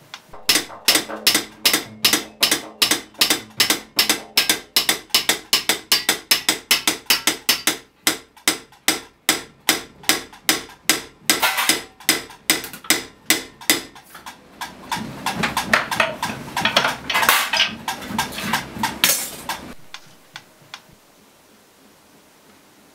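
Hand hammers striking copper in a steady beat of about three blows a second. About two-thirds of the way in, the blows turn into a denser, faster clatter, then stop a few seconds before the end.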